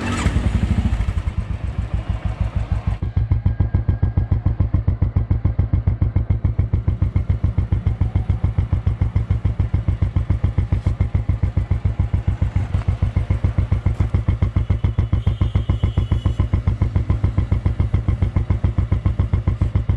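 Royal Enfield Thunderbird 350's single-cylinder engine, fitted with a Royal Enfield off-road exhaust, electric-started and idling with an even exhaust thump at about seven beats a second. It runs a little faster for the first couple of seconds, then settles.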